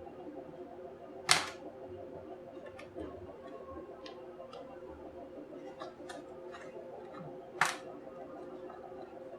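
Small tools and plastic parts handled at a workbench: two sharp clicks about six seconds apart, with fainter ticks and taps between them, over a steady low hum.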